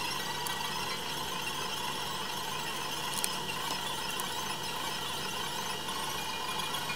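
A steady whine over a hiss, with a few faint ticks about three to four seconds in.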